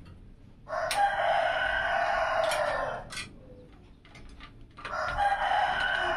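A rooster crowing twice, each crow lasting about two seconds.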